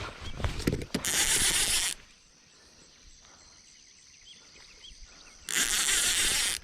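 Fishing reel drag buzzing as a hooked fish pulls line off, in two runs: about a second long near the start, and again for about a second near the end.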